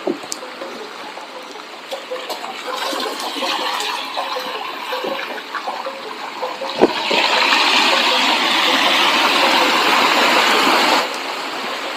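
Hiss and spray of tyres rolling on a rain-wet road. A louder, brighter rush of water spray begins about seven seconds in and cuts off sharply about four seconds later.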